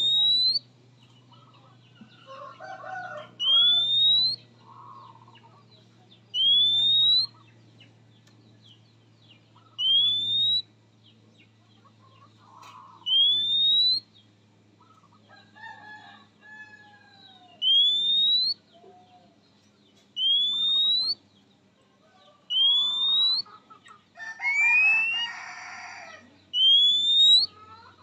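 Oriental magpie-robin giving a short, clear whistle that rises in pitch, about every three seconds. Softer chirps and warbled notes come between the whistles.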